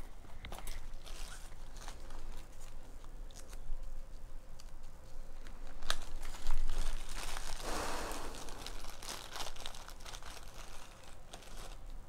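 Irregular crackling and rustling noise with scattered clicks, thickest and loudest about midway.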